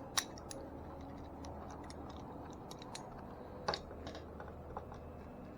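Light, irregular clicks and taps of hand tools on an e-bike's brake during adjustment, with a sharper click just after the start and another about two-thirds of the way through.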